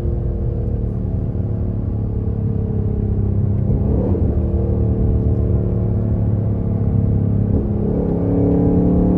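Ford Mustang GT's 5.0 V8 through a Borla S-Type cat-back exhaust, heard from inside the cabin while driving: a steady low drone whose note briefly breaks and resettles twice, about four seconds in and again near the end.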